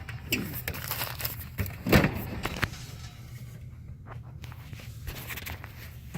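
Metal hand tools clinking and knocking as they are handled in a tool box drawer, with the loudest knock about two seconds in, over a steady low hum.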